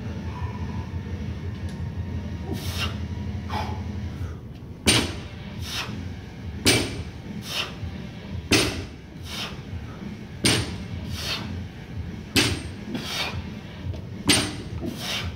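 Loaded barbell plates knocking down onto the stacked plates and mats on each deadlift rep: a sharp knock about every two seconds from about five seconds in, six in all, each followed by a fainter knock. A steady low hum runs underneath.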